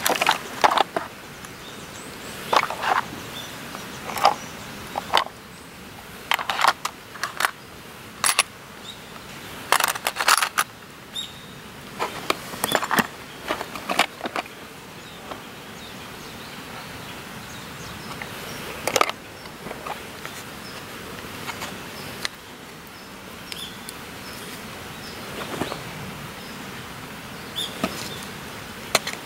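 Camping utensils and small tools clicking and knocking against a clear plastic organiser box as they are handled, lifted out and put back. The clicks come irregularly, thick in the first half and sparser later on.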